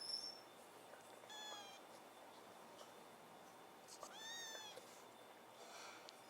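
Kitten mewing twice, thin high-pitched mews, the second longer and a little louder, about four seconds in; a brief very high peep sounds right at the start.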